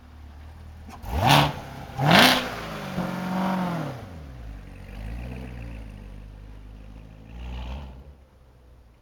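C7 Chevrolet Corvette's V8 blipped hard twice in quick succession, then accelerating away, the engine note rising and then fading. A shorter rise of the engine comes near the end.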